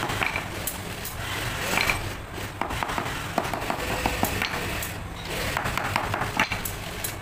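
Repeated, irregular knocks of a mallet pounding a leather welding glove against a concrete floor, over a steady hiss.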